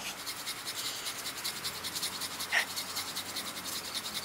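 A hand saw cutting through a thick tree limb in rapid, even back-and-forth strokes, with a short high squeak about two-thirds of the way through.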